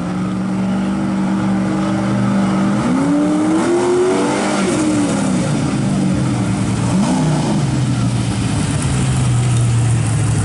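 Engine of a motorized fire-drill rig running and accelerating down the track. Its pitch is level at first, climbs and drops about three seconds in and again about seven seconds in, then settles lower.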